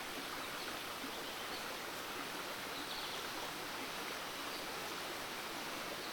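Steady, even rushing background noise, with a few faint, short, high chirps now and then.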